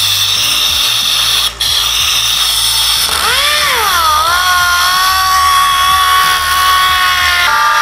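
Air-powered DA (dual-action) sander hissing as air blows through it, struggling to start for lack of air pressure. About three seconds in, its whine rises, dips and settles into a steady running tone.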